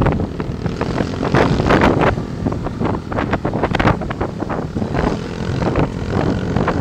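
Scooter engines running at road speed under heavy wind buffeting on the microphone, the wind surging and easing in irregular gusts.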